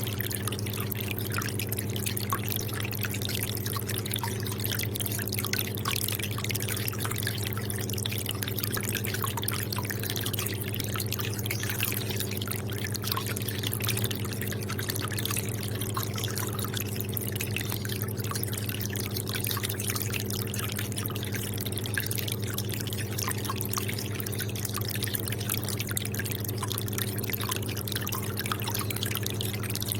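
Aquarium water trickling and dripping in many small, irregular splashes over a steady low hum.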